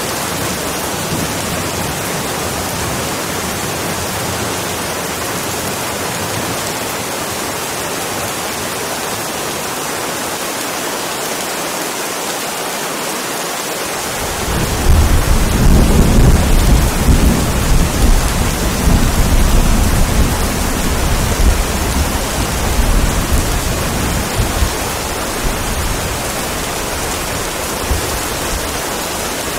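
Steady rain hiss throughout; about halfway through, thunder breaks in as a deep low rumble that lasts around ten seconds and then fades.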